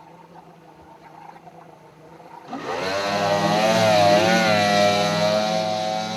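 Allison V-12 drag boat engine, faint at first, then opening up loudly about two and a half seconds in; its pitch climbs, wavers and holds steady.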